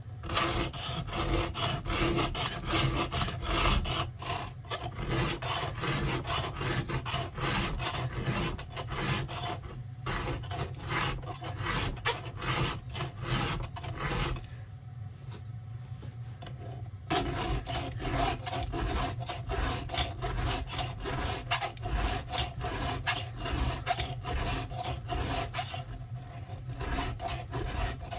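A hand file rasping across chainsaw chain cutter teeth in repeated, even strokes, with a couple of short pauses between teeth. It is resharpening cutters dulled and gouged by hitting a nail or rock.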